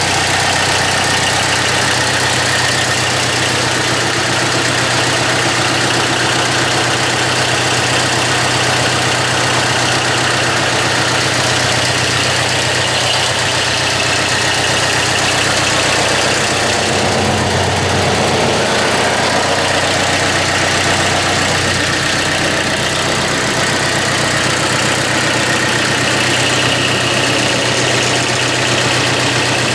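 Mitsubishi D1650 tractor's diesel engine idling steadily, test-run with its new fan belt fitted. The engine note shifts briefly about halfway through, then settles back.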